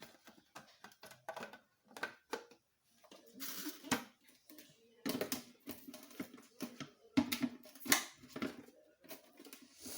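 Scattered light clicks and knocks of kitchen items being handled, with no blender motor running.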